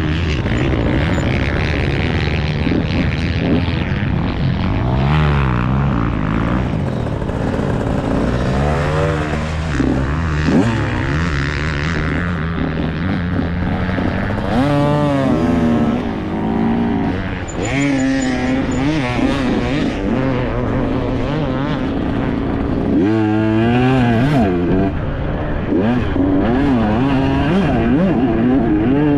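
Enduro dirt bike engine ridden hard, its pitch repeatedly climbing and dropping with throttle and gear changes.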